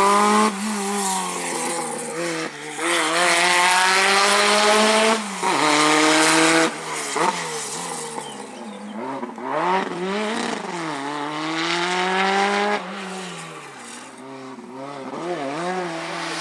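Historic rally car engine at full throttle, its pitch climbing and dropping sharply at each of several upshifts. After that it sounds fainter, revving up and down unevenly as the car carries on down the stage.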